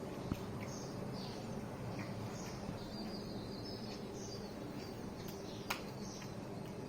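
Sparrows chirping over and over in short, high chirps, with a longer twittering run a few seconds in, over a steady low hum. Two sharp clicks, one just after the start and one near the end.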